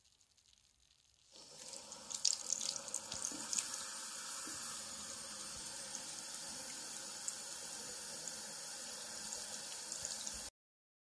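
Tap water running into a basin. It starts about a second and a half in with some splashing, settles into a steady stream, and cuts off abruptly near the end.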